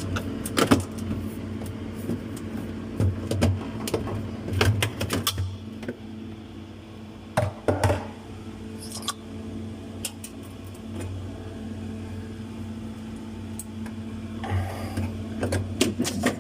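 Refrigerator running with a steady low hum after a filter-drier replacement and recharge, with short clicks and knocks scattered through as the freezer and its frozen contents are handled.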